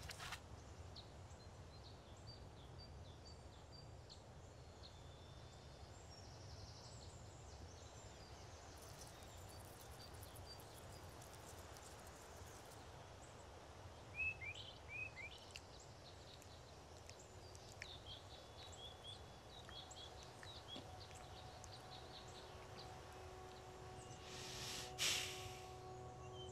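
Quiet woodland ambience: a low steady hush with faint, scattered bird chirps and a few louder chirps about halfway through. In the second half a soft sustained drone of several held tones comes in, and a short hiss sounds near the end.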